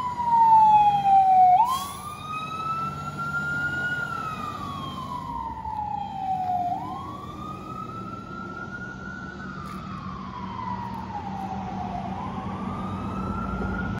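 Fire engine siren sounding a slow wail, its pitch sliding down and back up about every five seconds. It is loudest in the first two seconds, then fainter as the engine drives off on its emergency run.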